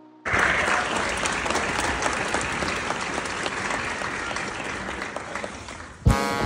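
Audience applauding steadily: a dense patter of many hands clapping that begins suddenly and stops about six seconds in, as music starts.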